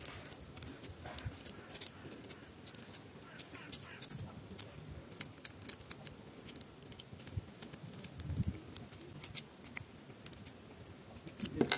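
Small, scattered metallic clicks and ticks of a hex key turning in the screws of a metal flashlight mount ring, with hands handling the mount.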